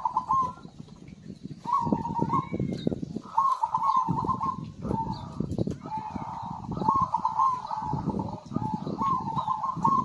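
Zebra dove (perkutut) cooing its rolling, trilled song over and over, a phrase about every one and a half to two seconds, over a crackly low background noise.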